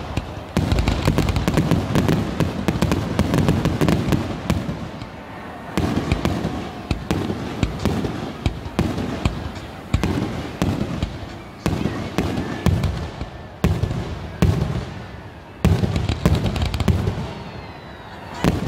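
Aerial fireworks grand finale. Shell bursts bang in a dense barrage at first, then separately about every one to two seconds, with crackling and a low rumble between bangs.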